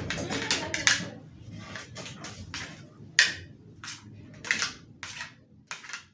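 Spoon scraping and knocking against plates while rice is served onto a plastic plate, in about a dozen short, irregular scrapes.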